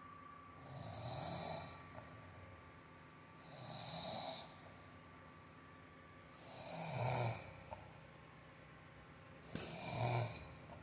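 A worn-out sleeping adult snoring: four snores about three seconds apart, the last two louder.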